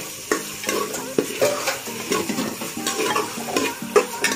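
A metal spoon scrapes and clinks in irregular strokes against the inside of an aluminium pressure cooker as chicken and capsicum masala is stirred. The masala sizzles as it fries.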